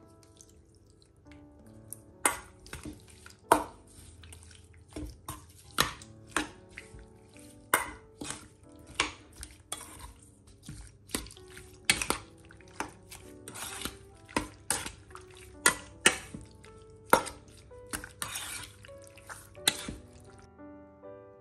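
A metal spoon stirring cubed raw meat in soy sauce in a stainless steel bowl, clinking and scraping against the bowl about once a second. Soft piano music plays underneath.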